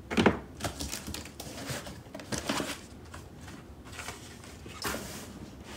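Cardboard shipping box being handled and opened by hand: irregular scrapes and rustles of cardboard, with a sharp knock just after the start.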